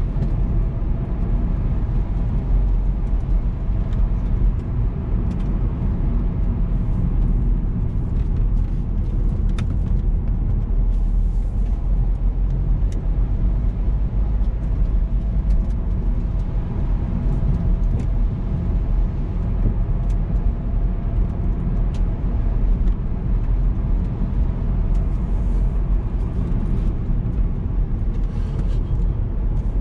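Car driving: steady engine and tyre rumble, with a few faint clicks scattered through it.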